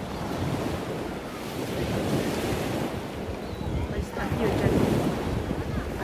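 Small waves washing onto a sandy beach, with wind noise on the microphone.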